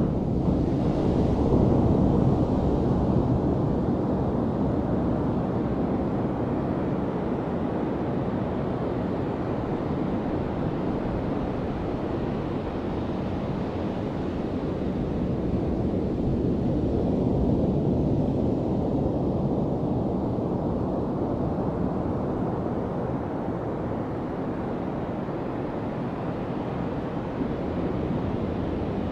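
Small waves breaking on a sandy beach and washing up the shore: a steady low rush that swells just after the start and again about halfway through.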